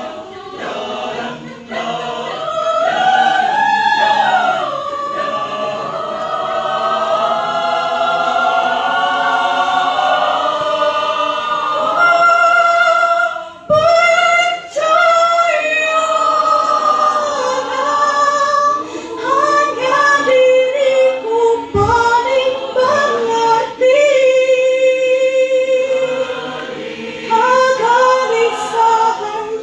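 A mixed choir of men and women singing a cappella under a conductor. Long held chords give way about halfway through to shorter, choppier phrases.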